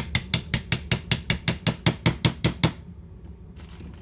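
Small hammer tapping a pin punch in quick, even strikes, about six a second, ending shortly before three seconds in, to drive a stubborn, glued-in pin out of a Beretta 71 pistol's frame.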